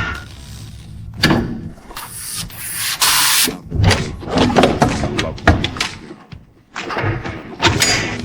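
Irregular knocks and clatter of hands-on repair work on a car, with a short burst of hiss about three seconds in.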